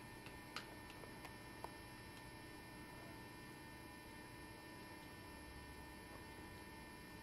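Near silence: a faint steady electrical hum, with a few faint ticks in the first two seconds.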